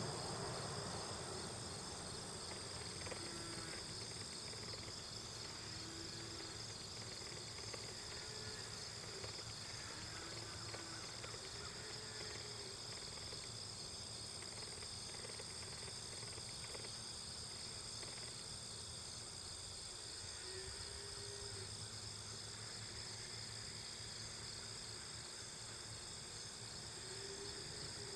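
Steady high-pitched drone of an insect chorus, with a few short, faint rising-and-falling calls now and then.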